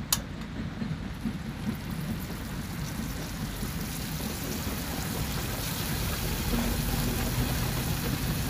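Spice paste sizzling and bubbling as it is sautéed in a pot on a portable gas stove and stirred with a wooden spatula: a steady crackling hiss. One sharp click right at the start.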